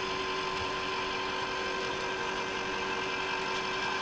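Electric motor of a Moesta rotisserie turning a chicken on the spit during a test spin: a steady hum with a few constant tones.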